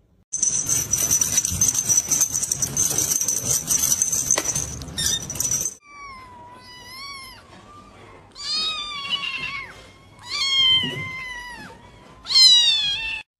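A kitten mewing: several short, high-pitched mews in the second half, the last one loudest. Before them there are several seconds of steady hiss with a high whine.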